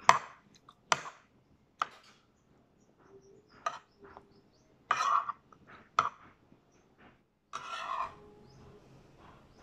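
Metal spoon clinking and scraping against a ceramic plate while scooping rice, in a series of sharp clicks with two longer scrapes, and quiet chewing in between.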